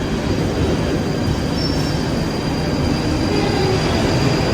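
London Underground train running: a steady loud rumble with a thin, high wheel squeal over it.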